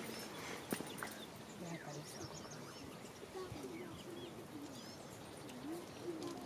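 Faint bird calls: short runs of high chirps and a low, wavering, repeated coo, with a couple of sharp clicks near the start.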